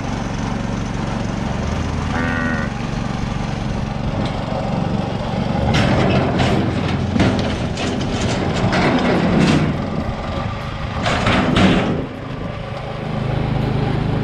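Small engine running steadily. Several bursts of rattling clatter come in the second half as the cow is let out of a tilting hoof-trimming chute.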